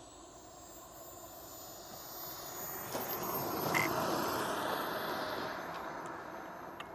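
Model jet turbine (KingTech K70 G4+) in an RC T-45 at low throttle on landing: a faint high whine slowly falling in pitch, with an exhaust rush that swells as the jet rolls past about four seconds in, then fades.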